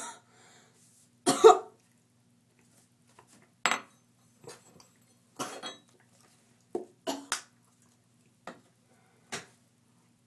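A person coughing after taking a spoonful of dry ground cinnamon: about ten short separate coughs, the loudest about a second and a half in.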